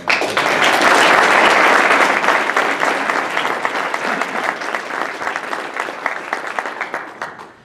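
Audience applause: a roomful of people clapping. It starts all at once, is loudest in the first couple of seconds, then thins to scattered claps and dies away near the end.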